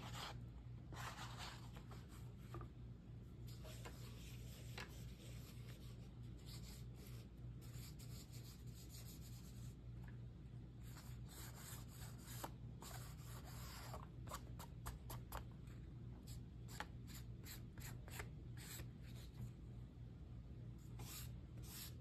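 Faint, irregular scratchy rubbing of a small ink pad dabbed and swiped across paper collage pages and along their edges.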